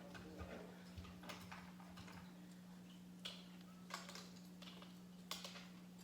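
Faint scattered clicks and taps, about six of them, over a steady low hum.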